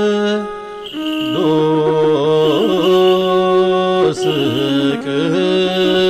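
Channel intro music: a chant-like melody of long held notes with ornamented bends and turns, over a lower sustained note.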